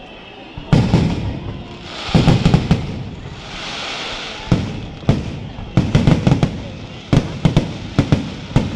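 Firecrackers and fireworks going off in quick clusters of loud bangs, with a hissing rush between the clusters about three and a half seconds in.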